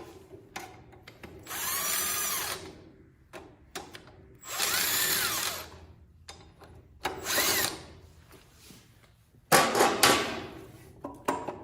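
Power drill run in three trigger pulls, each a motor whine rising and falling in pitch, as it spins out the cylinder head bolts; the third pull is shorter. A burst of clattering knocks follows near the end.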